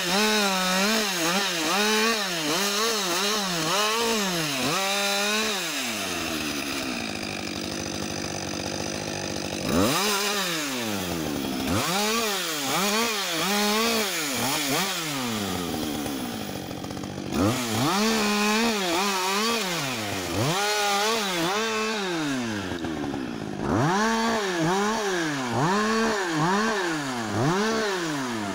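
Husqvarna 562 XP two-stroke chainsaw limbing a felled spruce, revving up and down about every half second as it cuts through branch after branch. It drops back to a steady idle a few times between runs of cuts.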